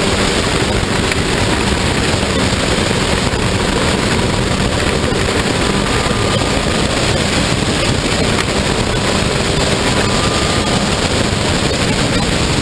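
Open-cockpit sports racer at speed, heard from the cockpit: a steady, loud rush of wind and engine noise, with the engine's pitch only faintly showing through.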